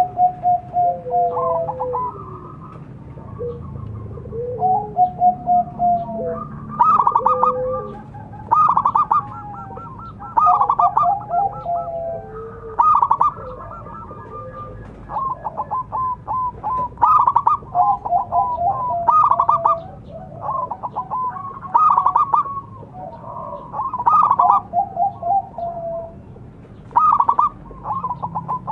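Zebra dove (perkutut) cooing: repeated phrases of quick clipped notes that run into longer, lower, falling coos, about one phrase every two seconds, with phrases at times overlapping.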